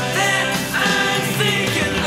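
Rock song playing: sung vocals over a full band.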